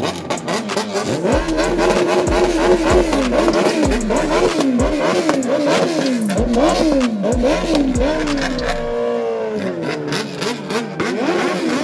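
A performance engine revved again and again in quick blips, its pitch rising and falling about once a second, with crackling exhaust pops. Near the end the revs fall away to a lower, steadier note.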